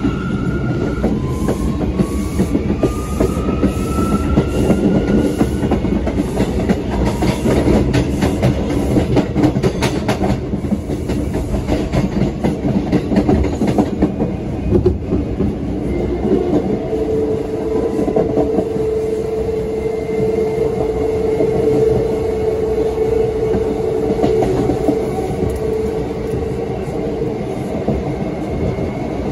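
Bombardier R179 subway car's MITRAC AC traction propulsion running. An electric whine rises in pitch over the first several seconds as the train picks up speed, then settles into a steady hum. Throughout, a rumble and clatter of wheels on rails runs beneath it.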